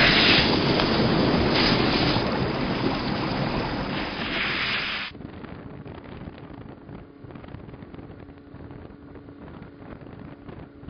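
A loud rushing whoosh from the logo intro, swelling three times, cuts off suddenly about five seconds in. After it comes much quieter wind on the microphone with faint irregular ticking.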